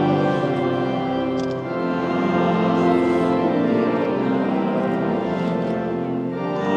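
Church pipe organ playing slow, sustained chords as processional music.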